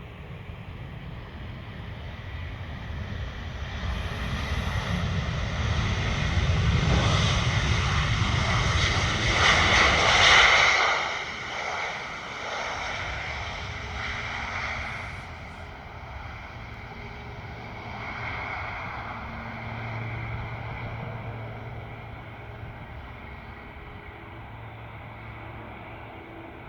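Passenger airliner passing close by on its landing approach: the engine noise, a rumble with a high whine, builds for about ten seconds to a peak, drops off sharply, then fades away.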